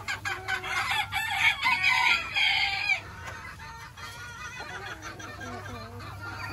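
Chickens clucking and calling, with a rooster crowing loudly between about one and a half and three seconds in, then softer clucking.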